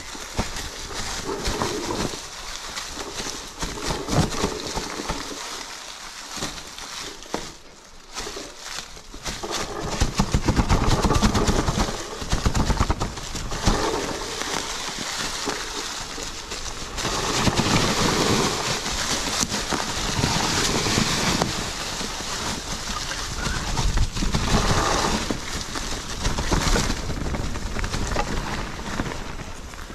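Riding noise from an e-mountain bike on a trail: wind rushing over the microphone with tyres rolling and rattling over the ground, surging and easing and loudest from about ten to thirteen seconds in.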